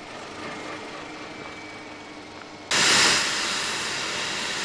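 Helicopter turbine and rotor noise: a fainter steady hum, then about three seconds in a loud rushing roar cuts in abruptly and holds steady.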